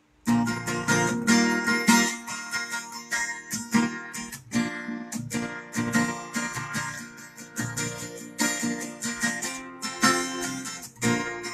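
Acoustic guitar strummed in a steady rhythm of chords, starting about a quarter second in.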